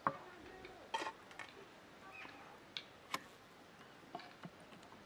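Light clicks and knocks of whole fish being handled and set down in a metal grill pan, scattered and irregular, the sharpest just after the start, about a second in and about three seconds in.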